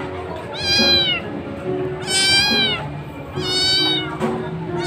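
A kitten meowing three times, about every second and a half, each high meow rising and then falling in pitch.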